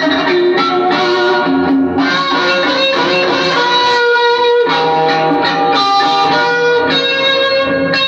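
Electric guitar playing a slow melody of long sustained notes, one note following another with hardly a break.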